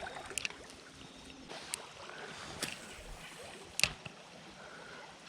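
Creek water running steadily, with four sharp clicks about a second apart; the fourth is the loudest.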